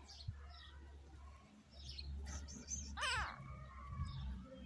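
A young kitten mews once, a short cry falling in pitch about three seconds in. Small high bird chirps repeat in the background.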